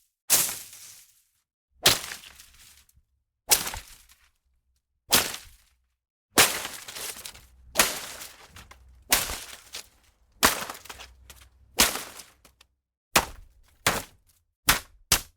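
Leafy plants and undergrowth being struck and slashed: a series of sharp hits, each followed by a short rustle of leaves, about one every second and a half, coming faster near the end.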